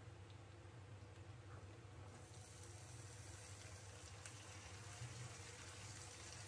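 Faint sizzling of potatoes frying in oil in a steel kadai, over a low steady hum; the sizzle grows a little louder about two seconds in as chopped onions go into the hot oil.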